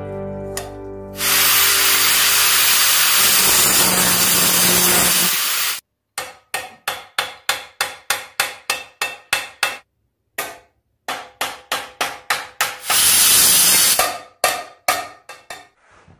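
Runs of quick hammer blows on iron, about four a second, each one ringing: a rivet being peened to join the forged spider's handle to its pan at the vise. A loud hiss lasts about four seconds before the blows and comes again briefly partway through. The first second holds the tail of guitar music.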